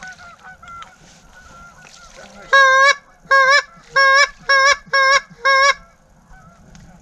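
Goose call blown hard by a hunter: six loud, sharp honks in quick succession from about two and a half seconds in, after a run of fainter honks.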